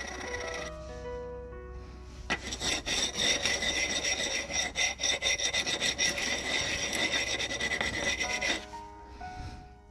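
A file or abrasive scraping in rapid back-and-forth strokes for about six seconds, chamfering the edges of a brake pad to stop it squealing. Background music plays with it.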